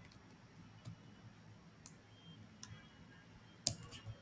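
Computer keyboard keys clicking: about five scattered, faint keystrokes, the loudest a little before the end.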